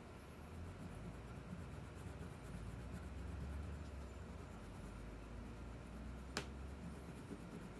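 Pink wax crayon scribbling on paper, faint and continuous as an eye of the drawing is coloured in, with one sharp click about six and a half seconds in.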